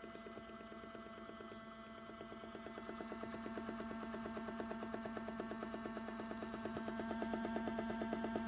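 A 40-year-old washing machine running its drum clean cycle: a steady motor hum with a rapid, even pulsing over it, growing louder about three seconds in.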